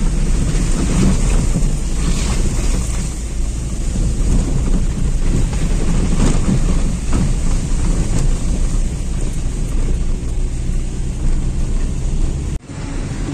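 Car driving, with a loud steady low rumble of road and engine noise heard inside the cabin; the sound drops out briefly near the end.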